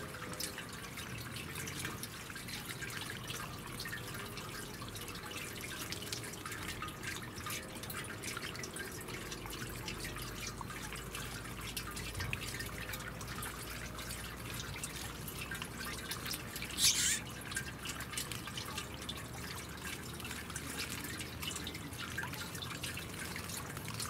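Pumped water from a porcelain garden fountain trickling and dripping steadily into its bird bath basin, with one brief louder sound about two-thirds of the way through.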